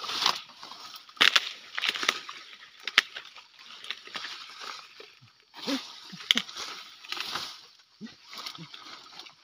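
Intermittent splashing and sloshing of shallow muddy water, with rustling vegetation and a few sharp clicks.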